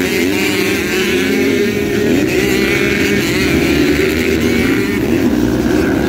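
A pack of motocross bikes racing past, many engines revving up and down at once through a corner.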